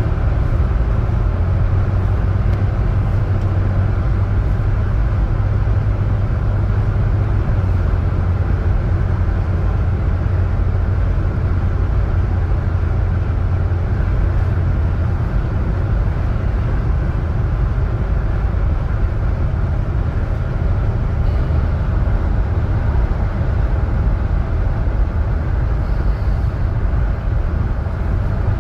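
A Chery Tiggo car running steadily: a constant low drone with an even rumble over it, the low drone easing a little about halfway through.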